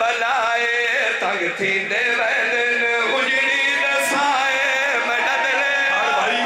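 Male voices chanting a mournful Punjabi lament (vain) into a microphone, the notes wavering and sliding, with one note held for a few seconds midway.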